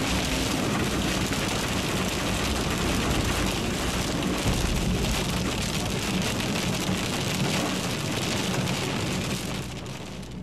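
Heavy rain hitting the windshield and roof of a moving car, heard from inside the cabin over the car's road noise, steady until it fades out near the end.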